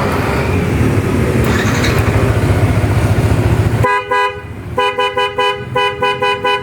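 Yamaha NMAX scooter engine running for about four seconds. Then its newly fitted pair of Denso snail horns sounds a low and a high note together, first in one blast and then in a string of quick, short beeps, as the horns are tested with the engine running.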